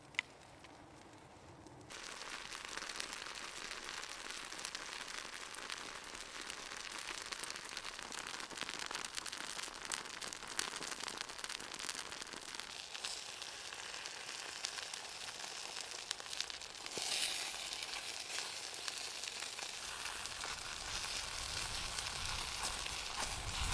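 Food frying in a hot pan, a steady sizzle with crackling that starts suddenly about two seconds in.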